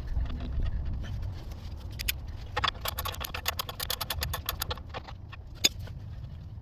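Ratchet wrench clicking rapidly and evenly for about two seconds while a bolt under the car is tightened, with a single sharper click a little later. A low steady rumble lies underneath.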